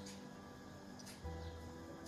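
Soft background music with held notes, with one soft low thump about a second in.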